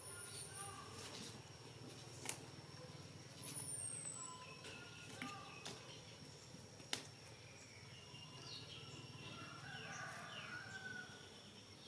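Faint scattered short chirps and squeaky calls, with a cluster of falling chirps near the end, over a steady high-pitched whine and a low hum, and two sharp clicks.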